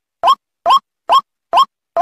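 White-breasted waterhen call: short notes, each sliding upward in pitch, repeated evenly about twice a second with silence between.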